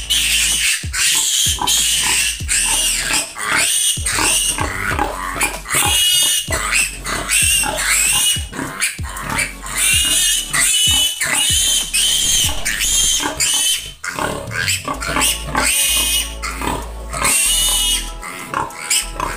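A piglet squealing in distress while it is held by its hind legs and castrated: loud, high-pitched screams, one after another with only short breaks.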